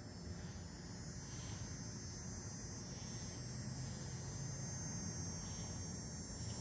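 Steady low hum with a faint high hiss, with no distinct events.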